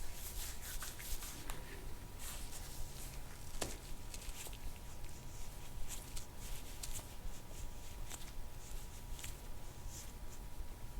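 Soft, intermittent rubbing and rustling as a patient's back is worked over by hand and elbow during deep soft-tissue work, with a faint steady tone underneath.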